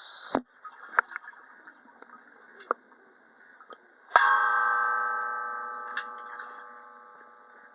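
A bronze bilo (flat plate bell) struck once about four seconds in, ringing with several steady overlapping tones that slowly fade. A few light taps and clicks come before the strike.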